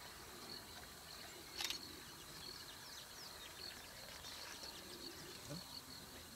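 Quiet bush ambience: steady, high-pitched insect chirping with faint water sloshing as elephant bulls move in a waterhole, and one sharp click about a second and a half in.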